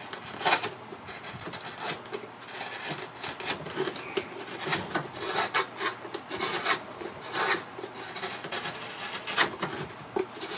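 Hand gouge paring the bottom of a wooden round tray: a run of short scraping cuts into the wood, irregularly spaced, about one or two a second.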